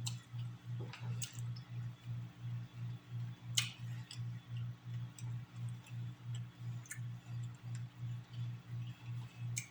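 A low hum throbbing evenly about three times a second, with a few sharp clicks and taps of crab shell being handled and eaten.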